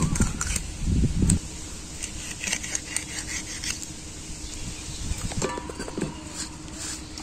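Tilapia being cut on a boti, a curved blade fixed to a foot stand: scattered scrapes and clicks of the blade through scales and bone, with light clinks of a metal bowl. A louder low rumble fills the first second and a half.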